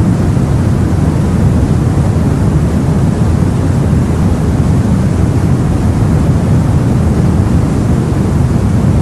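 Steady, unbroken low rumble of the sea heard aboard a boat, a deep even wash of water and wind with no separate waves or splashes standing out.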